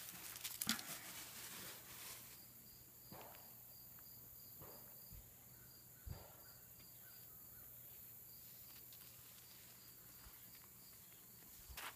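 Faint outdoor ambience with an insect chirping steadily in a high, even pulse about three times a second. There are a few soft clicks now and then.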